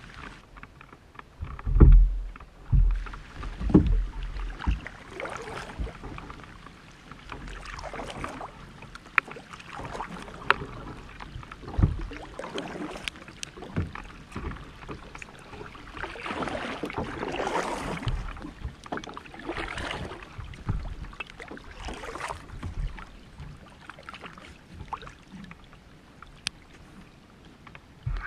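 Kayak paddle strokes, the blades dipping and splashing in the water every couple of seconds, with scattered drips and a few low thumps near the start.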